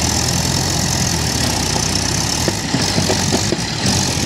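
Tractor diesel engines running steadily, with a Mahindra tractor pulling a loaded trolley slowly through mud.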